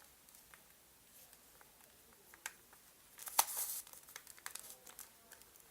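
Plastic Rubik's cube being twisted by hand: scattered clicks of its layers turning, with a quick run of rasping clicks about three seconds in.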